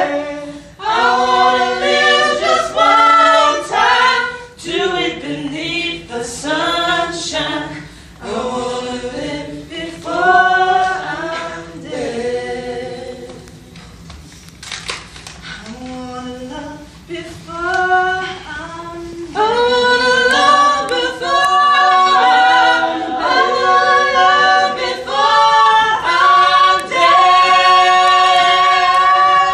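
Unaccompanied voices singing together, a cappella. The singing thins out and drops in level in the middle, then swells back into fuller, long held chords about twenty seconds in.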